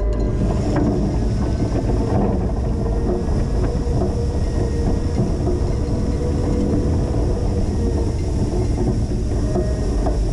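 Linde H20 EVO forklift's engine running steadily at a constant speed, with a steady whine over the rumble.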